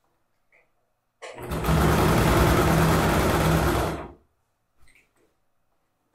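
Domestic electric sewing machine running at a steady speed for about three seconds, then stopping. It is topstitching through the fabric layers along a zipper. A few faint handling sounds of fabric follow.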